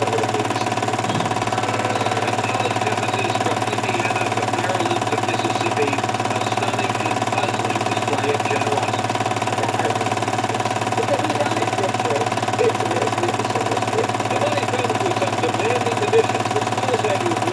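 A steady motor-like hum with a few held tones under it, unchanging throughout, with faint warbling sounds drifting over it.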